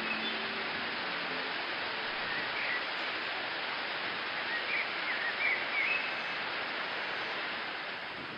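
Steady rushing hiss of a waterfall, with a few faint bird chirps about two and a half seconds in and again around five to six seconds in; the sound starts fading out near the end.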